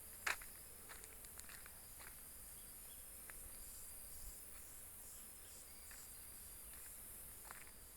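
Faint, steady high chirring of insects, with scattered footsteps on a road; the sharpest step comes about a third of a second in.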